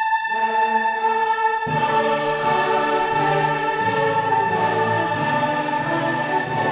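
Orchestral music with a choir singing held notes; lower parts come in about a second and a half in.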